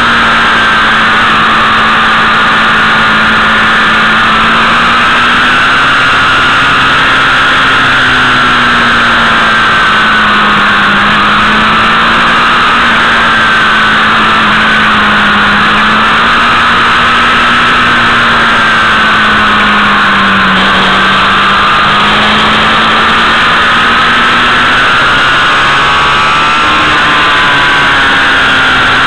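Motorcycle engine running at a steady road speed, recorded on board with a constant rush of wind over the microphone. Its pitch rises and falls gently with the throttle, then jumps up near the end.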